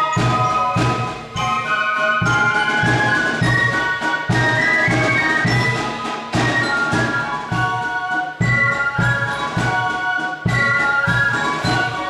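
Drum and fife corps playing: several flutes carry the melody in harmony over a steady drum beat, with short breaks between phrases.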